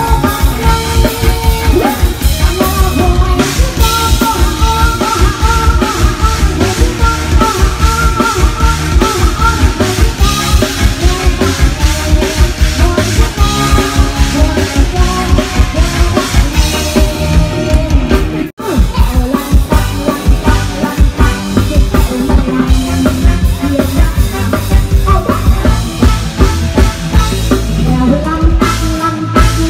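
Live band music with a drum kit keeping a steady beat and a singer. The music drops out for an instant about two-thirds of the way through.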